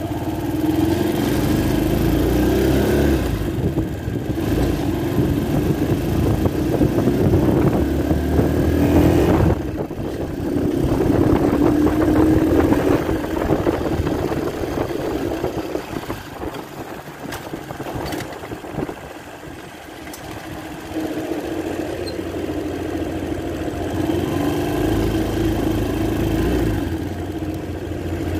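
250cc quad bike engine pulling hard under throttle while riding, the revs rising and falling, with two short sharp drops in the first ten seconds. It eases off and goes quieter a little past the middle, then pulls again toward the end.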